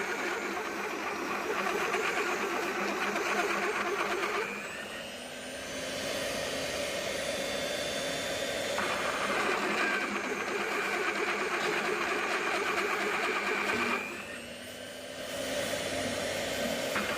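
Magnetic drill's electric motor running steadily. Twice, about four and a half and fourteen seconds in, it drops in level and loses its higher whine for a second or so, then comes back up.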